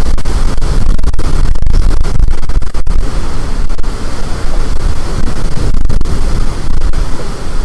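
Storm-force wind blasting the microphone: a loud, constant rumbling roar of wind noise with brief dips, the sound close to overloading.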